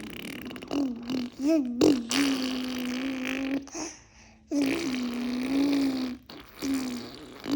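A person making funny, long buzzing vocal sounds, held at one steady pitch, four in a row with short breaks between them.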